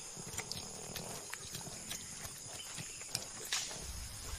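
A herd of white-lipped peccaries grunting as they move, with scattered sharp clicks and knocks, over a steady high-pitched background hum.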